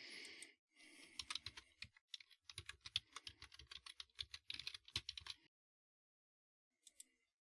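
Faint typing on a computer keyboard: a quick run of keystrokes lasting about four seconds, then a single click near the end.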